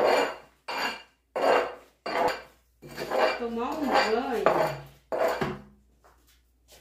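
Metal scraping and clanking at a wood-burning stove as the old ash is scraped out, in repeated short strokes about every 0.7 seconds. One longer scrape in the middle carries a wavering squeal, and the strokes stop about a second before the end.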